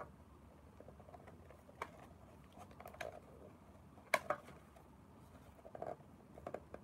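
Scattered small plastic clicks and taps from handling a GoPro Hero's plastic case while working its latch to take it off, with the sharpest pair of clicks about four seconds in.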